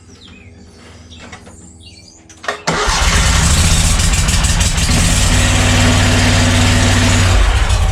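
Wright Stander ZK mower's Kawasaki V-twin engine cranked by its electric starter, catching almost at once about two and a half seconds in and then running steadily and loud. The quick start is not typical: the aging starter usually gives slow, sporadic hard starts.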